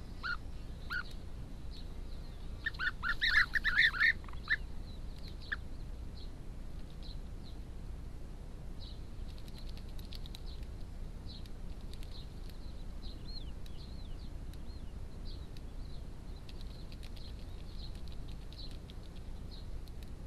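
European bee-eaters calling: a burst of quick repeated calls about three seconds in, then faint scattered chirps for the rest.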